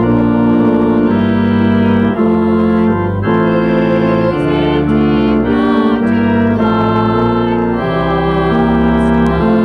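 Organ playing sustained chords that change about once a second.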